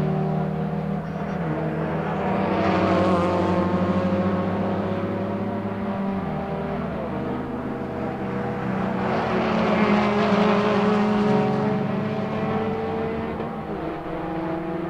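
Several V1600 class racing hatchbacks with small four-cylinder engines running hard around a circuit, their engine notes overlapping and slowly changing in pitch. The sound swells as cars pass, about three seconds in and again around ten seconds in.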